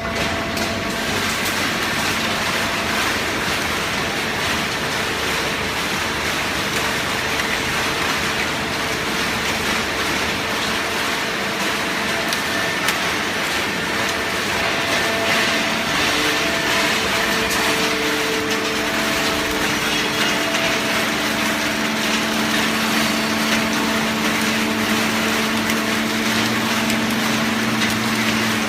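Horizontal hydraulic waste-paper baler running while pressing paper: a dense mechanical noise with the steady hum of its hydraulic power unit. A stronger, lower hum comes in about two-thirds of the way through.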